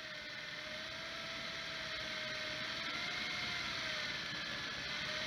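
Electric fishing reel's motor winding in line under load from a bent rod: a steady whine that slowly wavers up and down in pitch as the load changes, over a hiss of spool, water and boat noise.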